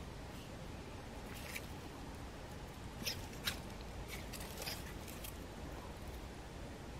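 Cat rustling in the garden plants: a few short crackles of leaves and stems about a second and a half in and again in a cluster between three and five seconds, over a steady low outdoor background.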